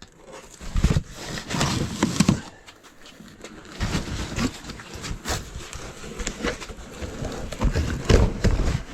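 Items and boxes being handled and moved while unpacking: irregular knocks, bumps and rustling, with a few heavier thuds.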